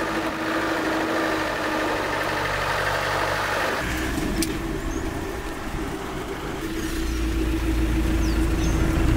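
Land Rover Defender engine and road noise heard from inside the cab while driving, with a steady whine over it. The sound shifts abruptly about four seconds in, and a deeper rumble builds over the last two seconds.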